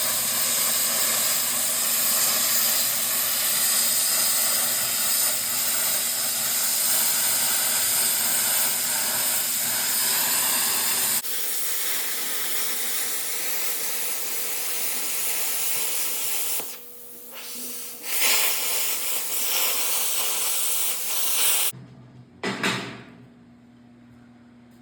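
Steady loud hiss of rushing air that changes character about eleven seconds in, drops out briefly around seventeen seconds, and cuts off a few seconds before the end, followed by a short knock.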